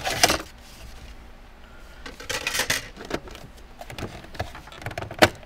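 Hands handling a removed plastic console trim piece: a short rustle and clatter at the start and again about two seconds in, with a few light clicks near the end.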